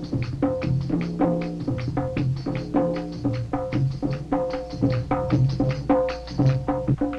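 Traditional Indian folk drumming: a fast, steady rhythm of pitched drum strokes, several a second, accompanying a dance.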